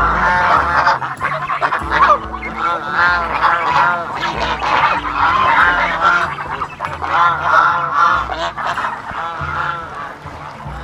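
A flock of white domestic geese honking over and over, many short calls overlapping, as they crowd around a basin of feed.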